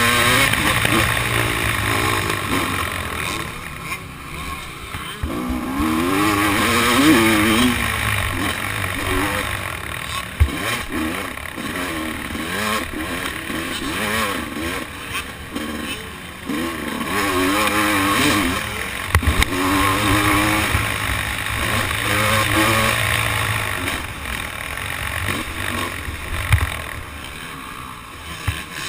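Motocross bike engine being ridden hard, revving up and falling off again and again through the gears, with rushing wind on the helmet-mounted microphone. There are a few sharp knocks, about ten seconds in and again near nineteen seconds.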